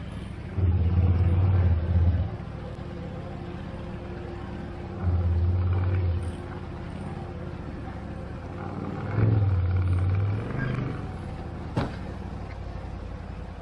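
ATV engine running with the throttle opened in three short surges, each lasting a second or so. There is a single sharp knock near the end.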